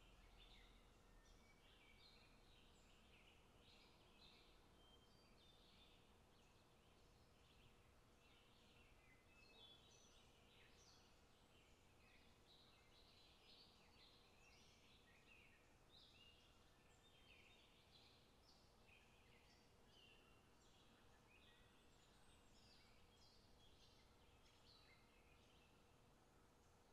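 Near silence with faint birdsong: many short chirps throughout, over a faint steady hum.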